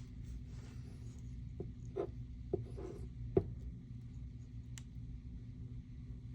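Glue being applied along the edges of a sheet of paper: faint scratchy rubbing with a few light taps and paper rustles.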